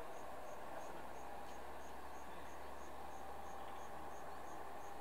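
Insect chirping outdoors: a short high-pitched pulse repeating evenly about three times a second over a steady faint drone.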